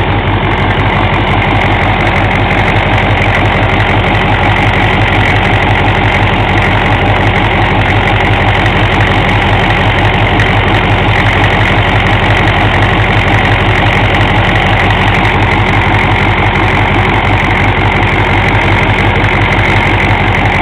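GM 6.5-litre turbo diesel V8 idling steadily with an even, rapid diesel clatter, its injection timing set to the 8-degree spec.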